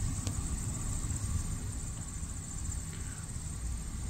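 Insects chirring steadily with a fine rapid pulse, high-pitched, over a steady low rumble, with one short click about a quarter second in.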